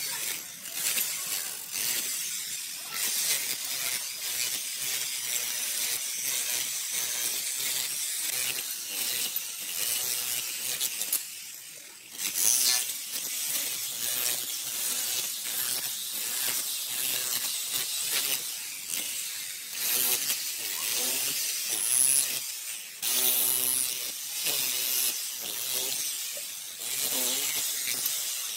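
Electric chipping hammer hammering at a steady rapid rattle as it chisels old ceramic wall tiles off concrete, the tiles cracking away in pieces. The hammering stops briefly about twelve seconds in.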